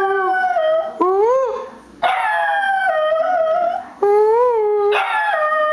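Small black-and-tan dachshund howling: about five drawn-out calls in a row with short breaks between them. Some bend up and back down, and others step down in pitch partway through.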